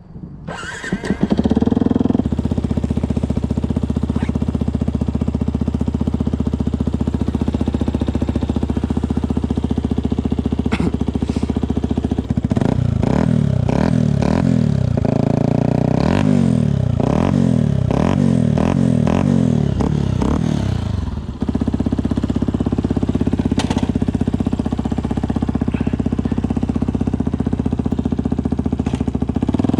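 Yamaha WR125's single-cylinder four-stroke engine through a Black Widow aftermarket exhaust. Its revs climb about a second in and it then runs steadily. In the middle stretch the revs rise and fall quickly over and over before it settles back to a steady run.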